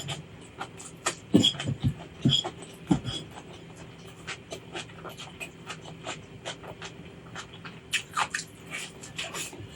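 Close-up eating sounds: chewing with many short wet mouth clicks and smacks, and a few heavier bites in a cluster early on.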